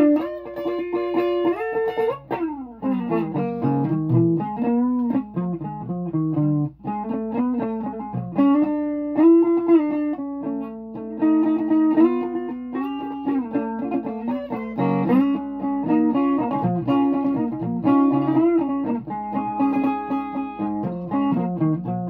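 Guitar being played: a run of picked notes and chords, with a long downward pitch slide about two seconds in.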